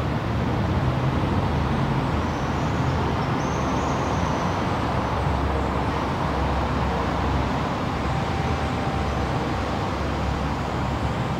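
Steady low rumble of distant road traffic, with no single event standing out.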